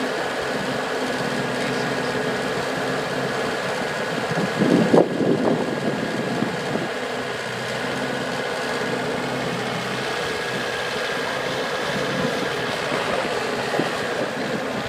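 Mustang 2040 skid steer engine running steadily at idle, briefly louder and rougher about five seconds in.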